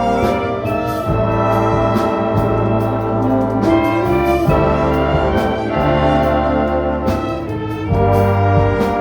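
An orchestra with prominent brass, trumpets and trombones, playing sustained chords over a steady bass line and beat.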